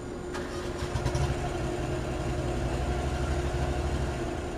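Riding lawn mower engine starting with a few clicks about a second in, then idling steadily.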